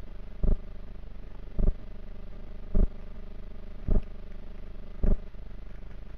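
A steady mechanical hum with a dull, low thump repeating evenly a little over once a second, five times.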